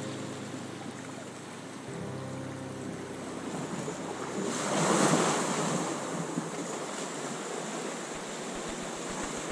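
Ocean waves washing against a rocky shore, one wave surging up loudest about five seconds in, with wind on the microphone.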